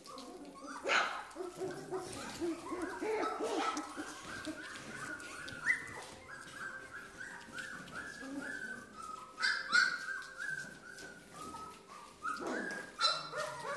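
Golden retriever puppies whining and yipping: a long string of short rising whines, about two a second, with a few sharp knocks in between.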